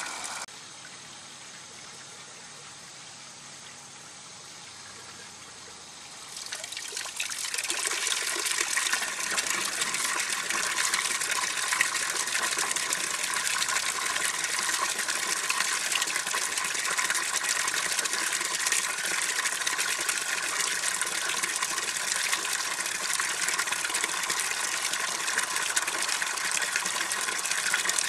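Water gushing steadily through an aquaponics bell siphon as it drains the grow bed. The sound is quieter for about the first six seconds, then rises to a louder, even rush.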